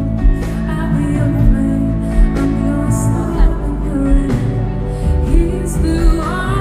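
Live pop band music with a woman singing: held notes over electric guitar and keyboard, with a low drum beat about every three-quarters of a second, and the voice sliding up near the end.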